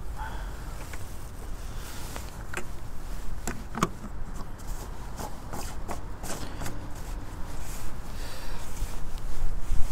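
Handling noise at a coolant expansion tank: a scatter of sharp plastic clicks and short scrapes as a block tester is lifted out and the tank's screw cap is put back and turned, over a steady low hum.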